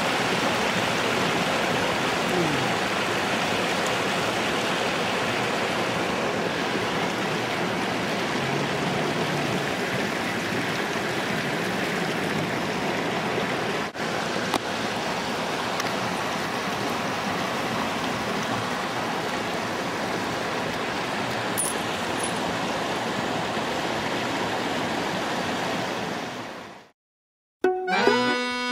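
Mountain stream water rushing over smooth rock slabs in a steady wash, with one brief dip about halfway. It fades out near the end, and accordion music begins just before the end.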